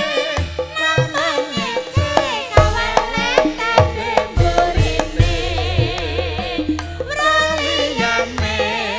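Javanese gamelan music: a high singing voice with a wide, wavering vibrato over ringing gamelan tones and deep kendang hand-drum strokes.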